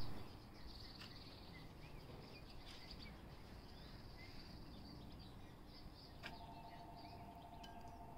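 Faint backyard ambience: small birds chirping and a steady high insect buzz, with a few light clicks. A short knock at the very start, and a steady hum joins about six seconds in.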